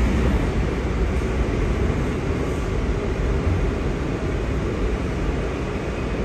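Steady running noise of a subway train heard from inside the car: a constant low rumble of the wheels on the track, even throughout.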